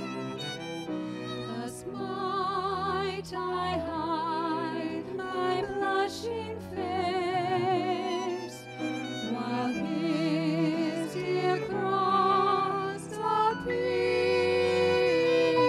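Violin and cello playing an instrumental passage of held notes, the violin's melody carrying a wide vibrato over the cello's lower line.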